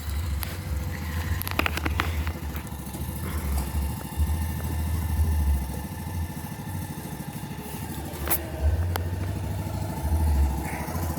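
Small engine running steadily with a low, even throb, with a few sharp knocks over it, the clearest about eight seconds in.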